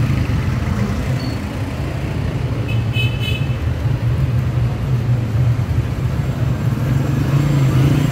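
Cars, a van and motorcycles passing close by in a procession, their engines running, with a short horn toot about three seconds in.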